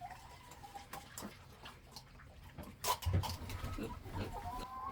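Pigs eating eggs, with faint chewing and snuffling. There is a sharp click about three seconds in, followed by a few low thumps.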